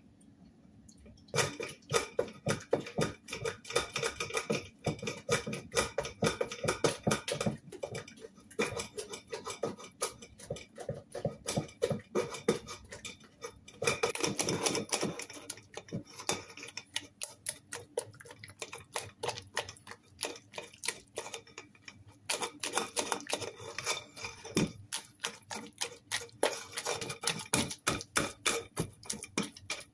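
Old Victorian beater working cooked apple pulp through a wire-mesh sieve: rapid, uneven tapping and clicking as it strikes and rubs the mesh. It starts about a second in, eases off in the middle and picks up again near the end.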